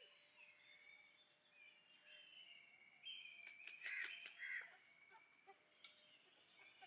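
Faint outdoor birdsong and bird calls, with a short run of louder, harsher calls about three to four and a half seconds in.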